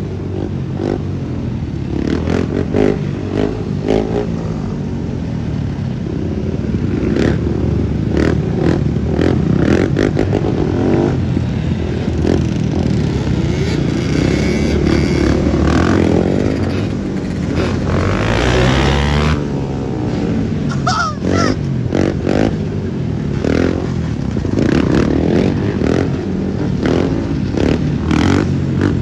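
Sport quad and dirt bike engines running and revving together on a group street ride, the nearest a Honda TRX400 quad. The engine pitch rises and falls a few times around the middle.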